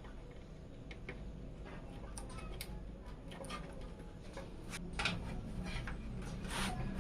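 Scattered small clicks and taps of computer hardware being handled during a PC assembly, with a sharper click about five seconds in and another near the end, over a faint steady hum.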